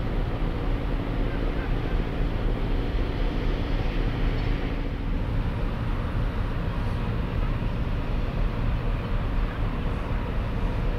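Large passenger ferry's engines running, a steady low drone with an even hum. One of the hum tones drops out about halfway through.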